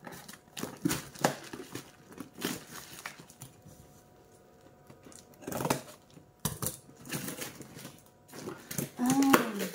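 Scattered rustles, crinkles and knocks as a taped cardboard parcel is handled and its packing tape picked at with the fingers. A short hum from a voice near the end.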